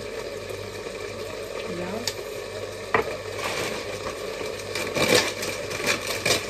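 Chicken pieces frying in a lidded frying pan, a steady sizzle. A couple of sharp clicks come about 2 and 3 seconds in, and from about halfway a plastic pasta packet crinkles as it is handled and opened.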